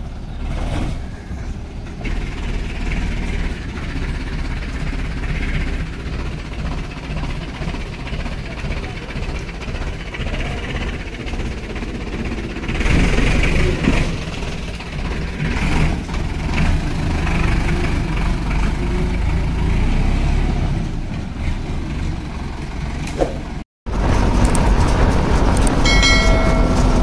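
Tractor diesel engine running with a steady low rumble that grows louder about halfway through. Near the end the sound drops out for an instant and comes back different, with a few steady tones.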